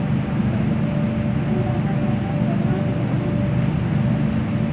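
Inside an MTR K-Train carriage in motion: a steady low rumble of wheels and running gear, with a thin steady whine that comes in about a second in and holds for a couple of seconds.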